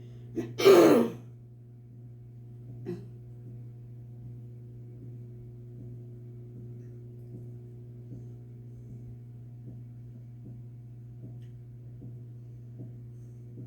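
A single cough about a second in, then the steady low hum of a microwave oven running.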